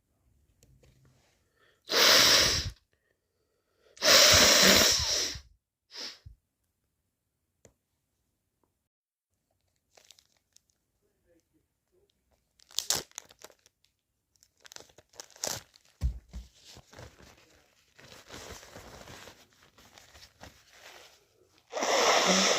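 A person with a cold sneezing twice, loud and wet. After a quiet spell comes a long stretch of crinkling and rustling, and another sneeze starts near the end.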